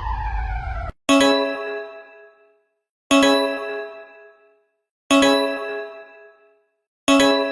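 Emergency alert alarm tones: a wailing siren-like tone cuts off just under a second in, then a bell-like chime is struck four times, two seconds apart, each strike ringing out and fading.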